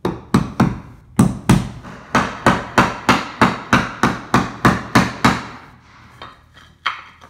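Hammer driving a pressure-treated 2x4 block in under a floor joist: a fast, even run of wooden blows, about three a second, then a pause and a couple of lighter hits near the end.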